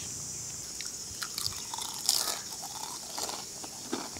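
Crisp masala dosa crackling and crunching as it is broken by hand and eaten, in scattered short crackles, the loudest about two seconds in. Crickets chirr steadily throughout.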